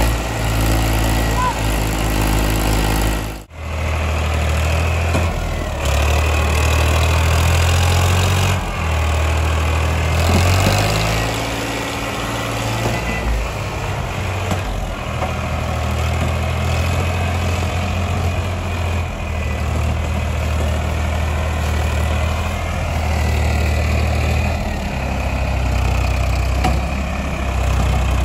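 Diesel tractor engines running steadily under load, hauling a trolley piled with sugarcane; the sound breaks off abruptly about three and a half seconds in and resumes at once.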